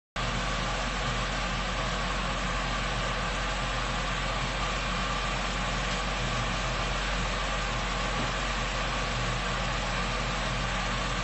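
Steady mechanical hum with hiss, starting suddenly just after the start and holding level throughout.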